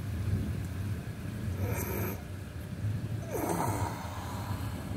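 Thunder rumbling on and off as a low, uneven rolling sound during a thunderstorm, with two brief noisier passages about a second and a half and three and a half seconds in.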